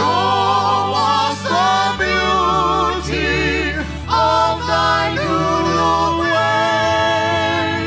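Live band performing a song: men and women singing together in harmony, holding long notes, over sustained keyboard chords that change every couple of seconds.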